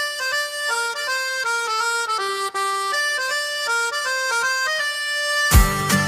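Music: a single melody line of quick stepping notes plays alone, then about five and a half seconds in a full band with bass and drums comes in on a loud hit.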